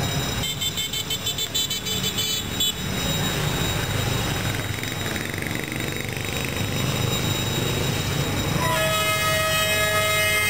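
Train running on the rails with a steady rumble, broken in the first couple of seconds by a choppy run of short high tones; near the end its horn starts one long, steady blast.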